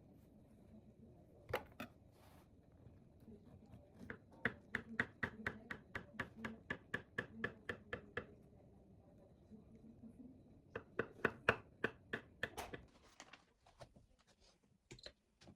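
Knife chopping on a cutting board in quick, even strokes, about five a second. There is a long run in the middle, a shorter run later, and a few single knocks around them.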